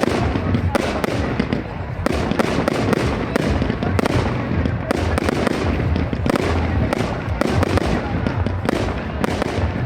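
Aerial fireworks display: a dense, unbroken run of bangs and crackles going off in quick, irregular succession over a continuous rumble.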